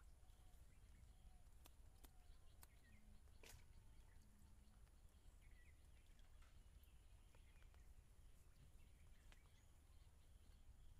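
Near silence: faint outdoor ambience with a low rumble, a few faint bird chirps and a few soft clicks.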